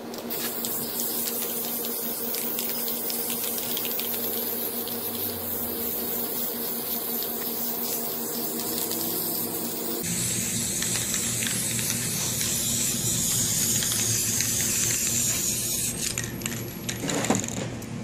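Aerosol spray paint can hissing in long continuous sprays over a steady low hum. The sound changes abruptly about halfway through, and there is a sharp click near the end.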